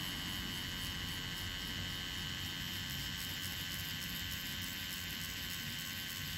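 Pen-style tattoo machine with a needle cartridge running steadily while packing red ink into skin: a continuous buzz with a thin, high whine held at one pitch.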